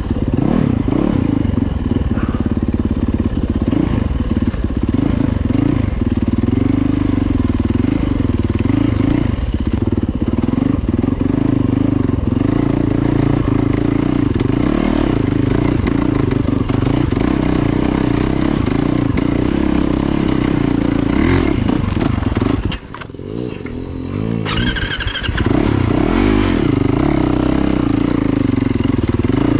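Yamaha YZ450FX dirt bike's four-stroke single-cylinder engine running steadily at low trail speed. Near the end the engine note briefly drops away and a short high-pitched squeal sounds before it picks up again.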